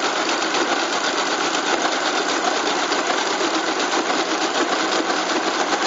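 1956 Friden STW-10 motor-driven mechanical calculator running an automatic multiplication: a loud, fast, steady clatter of its gears and cycling mechanism as it squares a ten-digit number, stopping right at the end when the product is done.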